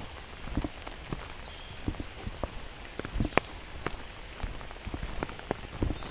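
Rain falling, with scattered large drops tapping irregularly and close by over a steady hiss.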